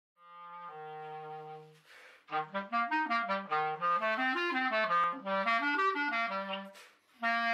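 A solo reed instrument playing one note at a time: a held low note that steps down a little, a short break, then a quick run of notes rising and falling. The run settles on a held low note, and a new phrase begins near the end.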